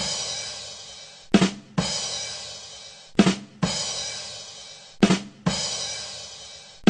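The 'ba dum tss' rimshot sting on a drum kit, played on a loop: two quick drum hits, then a cymbal crash that rings down. It repeats about every two seconds, the usual punchline for a bad joke.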